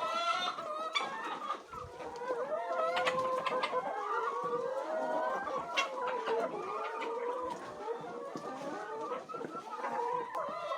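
A flock of laying hens clucking and calling continuously, many birds at once with overlapping calls.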